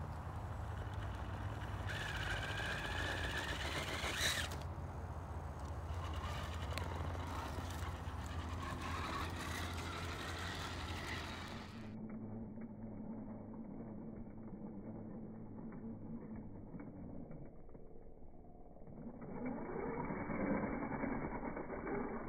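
Axial Capra RC rock crawler's small electric motor and geartrain whining as it crawls over rubble, the whine rising and falling with the throttle and loudest near the end.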